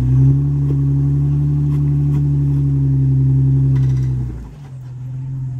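Off-road vehicle's engine running at steady revs as it crawls over rock, then dropping off sharply about four seconds in.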